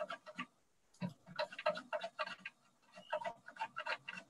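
A jalapeño pushed in quick strokes across the blade of a plastic mandoline slicer, making a run of short slicing clicks about four or five a second. The run breaks off briefly about half a second in and again near three seconds.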